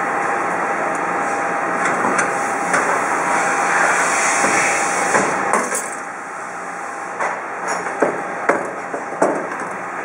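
Metal knocks and clunks as the buckle plate of a Kluge folder gluer is lifted and swung from its angled to its vertical position, most of them in the second half. Underneath runs a steady machine hum with a faint whine.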